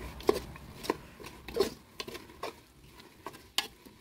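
Metal spoon stirring a dry-roasting fish mixture in an aluminium pot, scraping and clinking against the pot's side and bottom about five times at irregular intervals.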